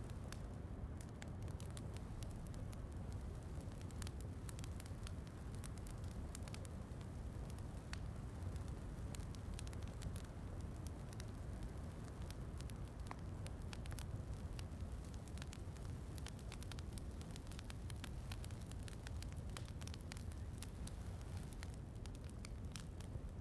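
Fireplace crackling, with scattered sharp pops and snaps over a steady low rumble.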